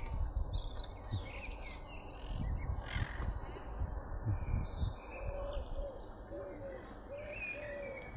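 Several birds chirping and calling over one another, with a run of short low coo-like calls repeating about twice a second in the second half. Low rumbles on the microphone come and go underneath.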